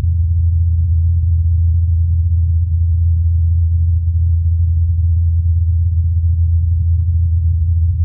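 The rotor blades of NASA's Ingenuity Mars helicopter in flight, picked up by the Perseverance rover's microphone about 80 metres away: a steady low hum, isolated from the rest of the recording and amplified.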